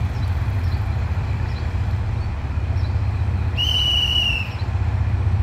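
Diesel locomotive engine running with a low, steady rumble as the passenger train it heads rolls slowly in. About three and a half seconds in, a single high whistle sounds for about a second.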